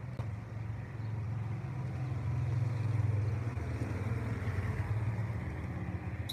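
Small motorcycle engine passing close by and riding away, swelling to its loudest about halfway through and then fading.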